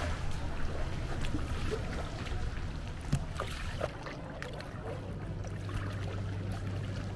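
Kayak paddling on a canal: water sloshing and dripping around the paddle and hull, with scattered small splashes and clicks. A steady low hum joins about two-thirds of the way through.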